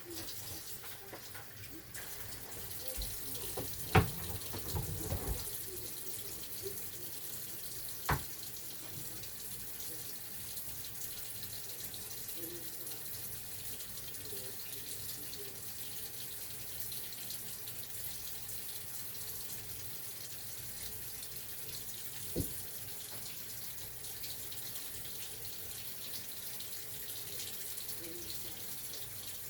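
Kitchen sink faucet running steadily while raw chicken is washed and trimmed under it. A few sharp knocks from handling come about four, eight and twenty-two seconds in.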